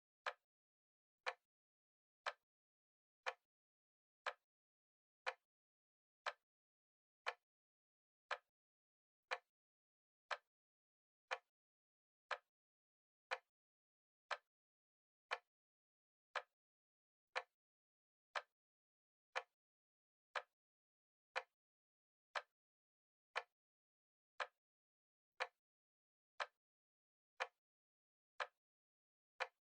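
Clock ticking steadily, one short, crisp tick every second.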